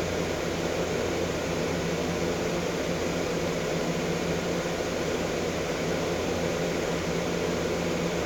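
Steady background hum and hiss, like a running fan, with a low, even drone and no change throughout.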